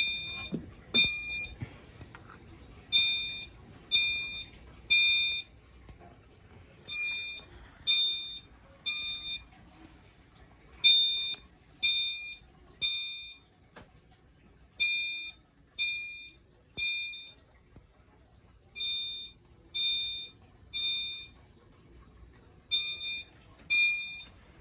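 System Sensor SpectrAlert Advance chime strobe sounding the temporal-3 (code 3) evacuation pattern at low volume, set off by a pulled manual pull station. It gives three bright chimes a second apart, then a pause, and the group repeats every four seconds.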